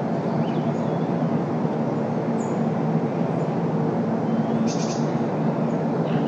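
Steady road traffic noise with a low hum underneath. Small birds call over it: a short high chirp a little over two seconds in and a quick high trill of several notes near five seconds.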